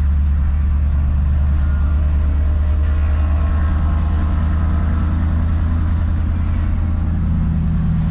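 1977 Ford F-150 pickup being driven, heard from inside the cab: a steady low engine drone.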